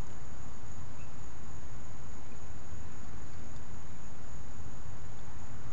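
Steady outdoor ambience: a constant rain-like hiss, though it is not raining, with a continuous high insect trill over it and a low rumble underneath.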